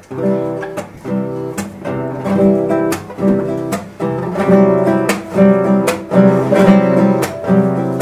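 Acoustic guitar strumming chords. It starts suddenly and grows louder over the first few seconds, with accented strums a little under a second apart.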